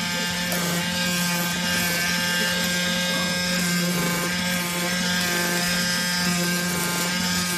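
CNC oscillating knife cutter running as its vibrating blade cuts cardboard: a steady, even machine buzz with a hiss over it.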